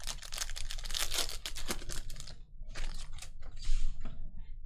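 Trading card packs being torn open and the cards flicked through by hand: a quick run of crisp clicks and crinkling of foil wrappers, thinning out after about two and a half seconds.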